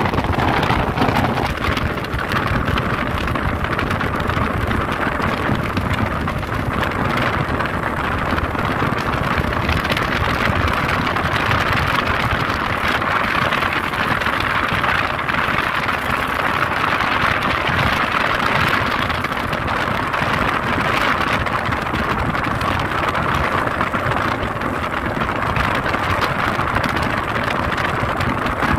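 Speedboat under way: the outboard engine running steadily at cruising speed under a constant rush of water against the hull and wind.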